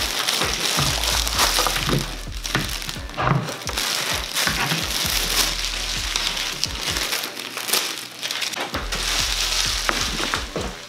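Clear plastic packaging crinkling and rustling as it is pulled off a heat press, with irregular crackles and handling clicks, over background music.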